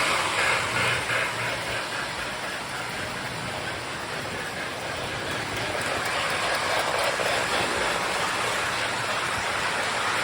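Toy electric train running on a metal track layout: a steady rumble and rattle of wheels and motor with a noisy, hissing sound-effect texture.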